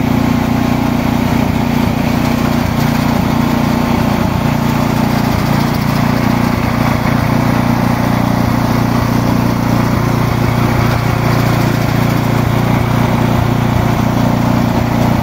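Leaf-sorting machinery for indigo leaves running steadily: a large drum fan and an orange sorting machine, giving a constant low mechanical drone.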